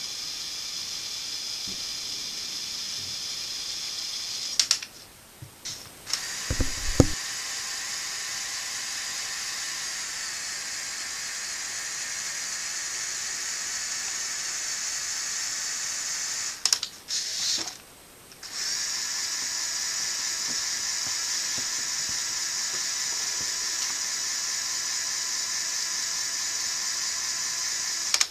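LEGO Technic Power Functions electric motors driving the vehicle's gear train and four-wheel-drive driveline, a steady high whine with gear rattle. It cuts out twice for a second or two, about five and about seventeen seconds in, with clicks and a couple of plastic knocks around the first break.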